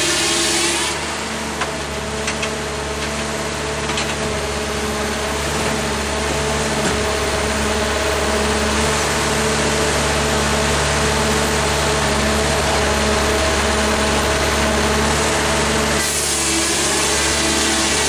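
Twin-Cut portable sawmill running steadily, its engine and circular blade humming. The hissing noise of the blade cutting dies down about a second in and comes back near the end as the blade works the log again, with a few light knocks early on.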